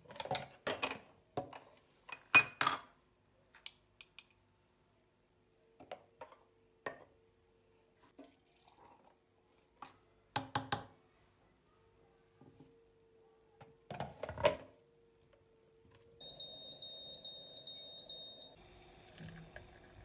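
Knocks and clinks as the pot of an electric Turkish coffee machine is handled and stirred with a spoon, the loudest a couple of seconds in. Later the machine gives a run of about five short high beeps over a low hum as it starts brewing.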